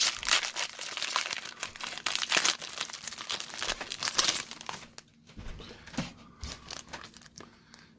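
A trading-card booster pack wrapper crinkling and being torn open, dense for about the first five seconds, then fainter scattered crinkles.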